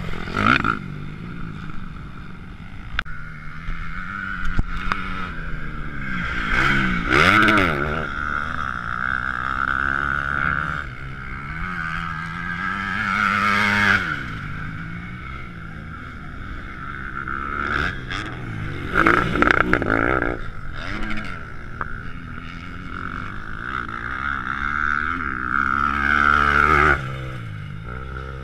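Motocross dirt bike engines revving up and falling off as the bikes ride the track, over a steady high drone. Loud swells come about a second in and then roughly every six seconds; the last one cuts off sharply near the end.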